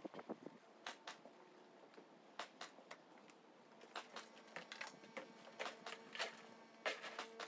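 Faint, irregular clicks and light taps, sometimes several in a second, sometimes a second apart.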